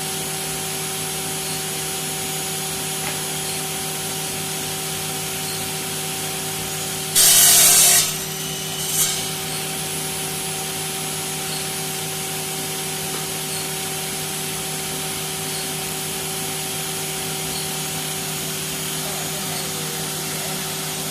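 Homemade twin-blade wall-chasing saw running steadily on its electric motor, with a constant hum. About seven seconds in comes a loud, harsh burst lasting under a second as the blades cut, and a shorter one follows about two seconds later.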